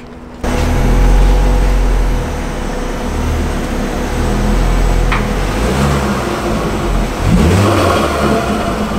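Ford Focus ST's turbocharged 2.5-litre five-cylinder engine running, its pitch rising and falling a few times as it is driven at low speed.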